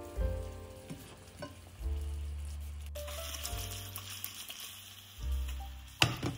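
Ricotta gnocchi and basil pesto sizzling in a frying pan over background music, with the sizzle building about halfway through. A sharp knock comes near the end.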